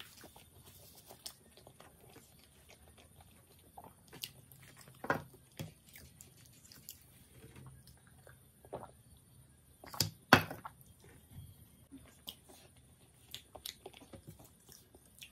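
Close-miked eating sounds: chewing pizza and French fries, with scattered soft wet mouth clicks and a sip from a glass partway through. A couple of sharper clicks about ten seconds in.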